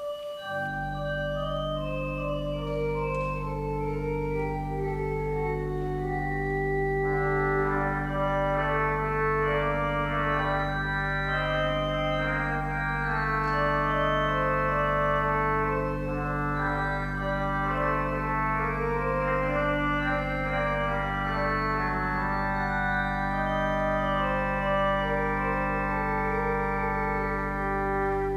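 Two-manual church organ playing a slow piece: moving chords and a melody over a long-held deep pedal note.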